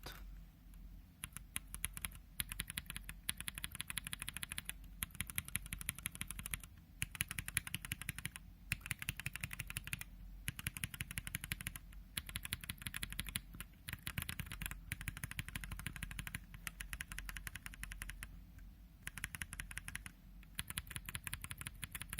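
Mechanical keyboard with unlubed tactile switches on a brass plate being typed on quickly. The typing comes in runs of several seconds, broken by short pauses.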